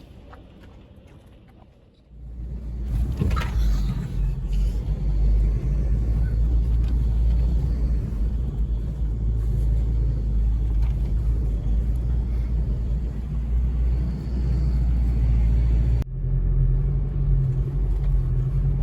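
Low, steady rumble of a motor vehicle, starting about two seconds in after a quieter stretch. It changes abruptly near the end to a steadier engine hum.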